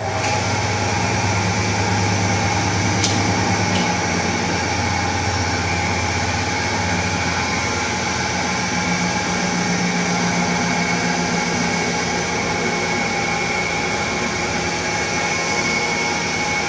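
Outdoor warning siren sounding a steady, unwavering tone made of several pitches at once, starting abruptly and holding at an even loudness.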